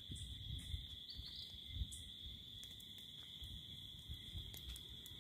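Insects, crickets by their sound, keeping up a steady high-pitched drone, over a low rumble with a few faint clicks.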